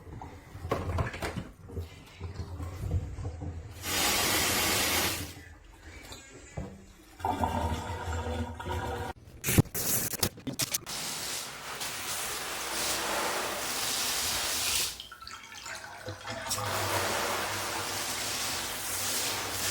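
Water from a faucet sprayer attachment spraying and splashing. It starts and stops in uneven spurts, with a few sharp knocks about halfway through, then runs more steadily with one brief break.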